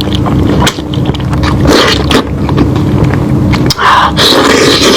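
Close-up chewing and biting of meat, a run of irregular wet, scraping bursts over a steady low hum.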